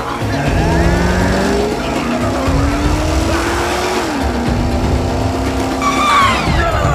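Car engine revving, its pitch climbing in steps as if shifting up through the gears, then dropping and holding steady; a brief squeal near the end.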